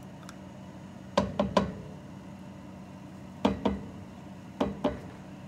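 Measuring cup and spatula knocked against the rim of a frying pan to shake off sour cream. There are three quick knocks about a second in, two more in the middle, and two near the end.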